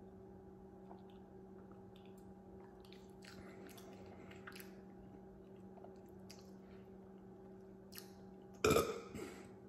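Faint sipping and mouth sounds over a steady low hum, then one loud burp near the end.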